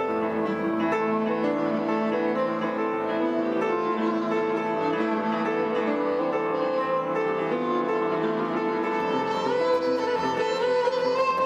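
Violin and upright piano playing a duet, the violin bowed over the piano.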